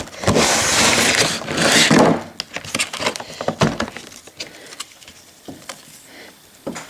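Packaging rustling and crinkling loudly for about two seconds as a model locomotive is handled out of its box, followed by a few light clicks and taps that grow quieter.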